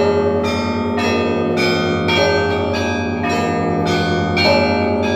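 Church bells ringing: several smaller bells struck in a quick, steady rhythm of about two strokes a second, each stroke a different pitch, over the continuous low hum of a larger bell.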